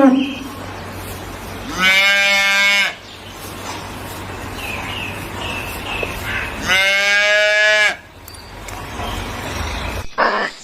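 A calf mooing twice, each a steady call about a second long, with low background noise in between.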